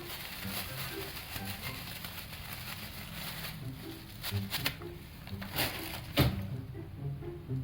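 Soft low notes of background music, with a few sharp clicks from about four seconds in; the loudest click comes a little after six seconds.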